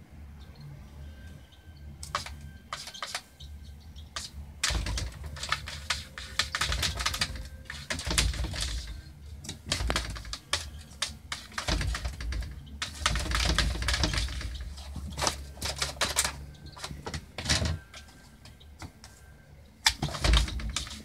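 A cat's claws and paw pads tapping and scratching on a glass tablet screen in rapid, clicking flurries that start a few seconds in, run on for much of the time, and come back in a short burst near the end.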